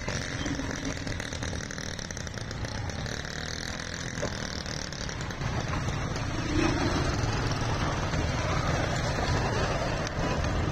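Road traffic heard from a moving vehicle: motorcycle and rickshaw engines running under a steady rush of tyre and wind noise. It grows louder about halfway through, as the tyres roll through floodwater covering the road.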